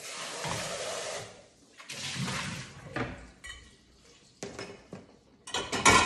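Kitchen tap running as a bowl is rinsed in the sink, then the water stops. Dishes clink and knock as they are set into a dishwasher rack, loudest in a clatter near the end.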